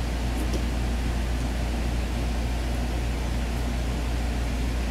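Steady low hum with an even hiss underneath, unchanging room background noise, with two faint light clicks in the first second.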